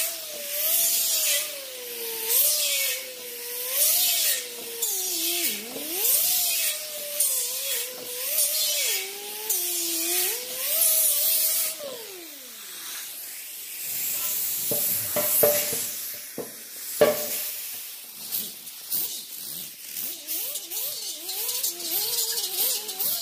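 A rotary tool spinning a Roloc bristle disc scrubs the bare metal of a tank. Its motor whine wavers in pitch as the brush is pressed and lifted, under a scratchy hiss from the bristles on the metal. About twelve seconds in the tool winds down, a few knocks follow, and it starts brushing again near the end.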